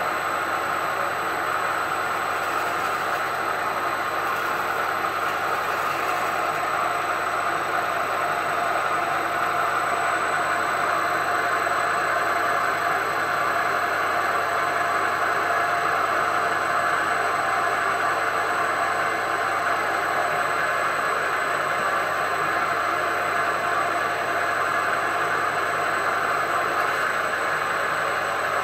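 CNC milling machine's spindle running steadily while a drill bit cuts into the induction-hardened steel bedway of a Harrison M300 lathe.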